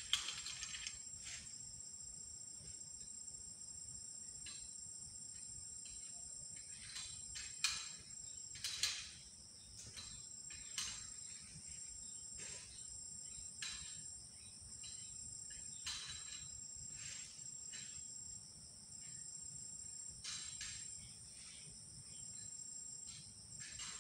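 Steady high-pitched insect chorus, with a scattering of short sharp clicks and snaps over it, the loudest right at the start and about eight and nine seconds in.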